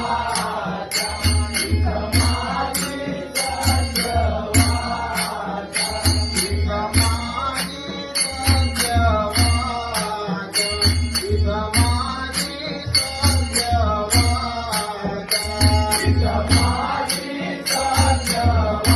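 Marathi devotional bhajan from the Konkan, sung to Ganesha: voices sing the melody over a steady low drum beat, with small hand cymbals (taal) striking in regular rhythm.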